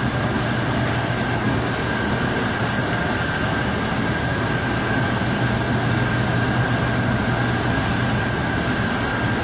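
Mutoh wide-format sublimation inkjet printers running while printing transfer paper: a steady mechanical whir with a low hum and a faint high-pitched whine.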